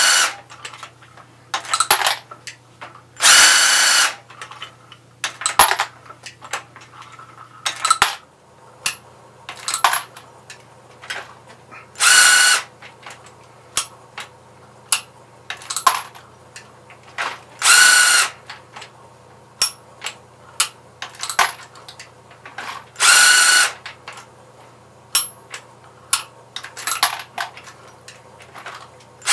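Cordless drill spinning a Lee Deluxe Quick Trim cutter on a Lee Loadmaster progressive press as .223/5.56 brass is sized and trimmed. It runs in brief whining bursts of about a second, repeated every few seconds, among metallic clanks of the press and clinks of brass cases dropping.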